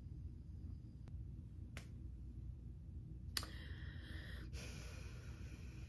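Quiet room tone with a low steady hum and a few faint, scattered clicks.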